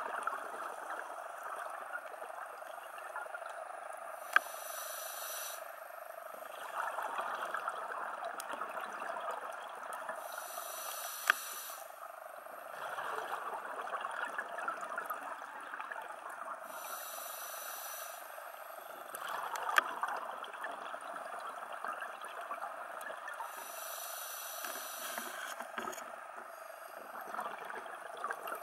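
Underwater sound of a scuba diver breathing through a regulator, about once every six seconds. Each breath in is a short hiss, followed by a longer, louder stretch of exhaled bubbles over a steady water hiss, with a few sharp clicks.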